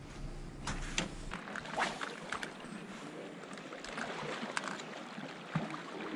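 Sea water lapping against a concrete pier, an even wash of water noise with a few sharp clicks and knocks scattered through it.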